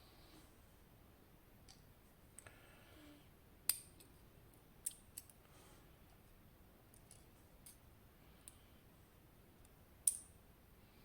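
Sparse, sharp little metallic clicks of small lock parts being handled as a TESA T80 lock is taken apart and its pins removed, with two louder clicks about four seconds in and near the end.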